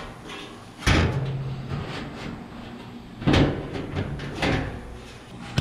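A new sheet-metal trunk floor pan for a Chevy II being set down and shifted in the trunk: two loud metallic thumps, about a second in and just past three seconds, each followed by a short low ring, with lighter knocks between.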